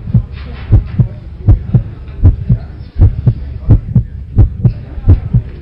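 Heartbeat sound effect: steady low lub-dub thumps, one pair about every three quarters of a second.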